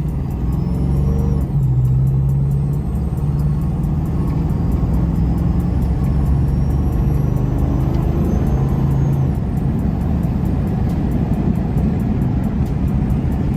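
Music with a deep bass line playing on a car stereo inside a moving box Chevy, over a steady rumble from the road and engine. The bass notes stop about nine seconds in, leaving the driving rumble.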